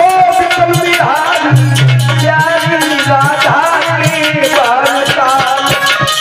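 A man singing a Hindi devotional bhajan over harmonium, with hand percussion keeping a steady beat.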